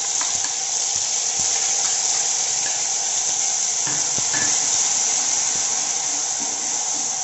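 Onion paste sizzling steadily in hot oil with cumin seeds in a kadai, stirred with a spatula that gives a few soft knocks against the pan about halfway through.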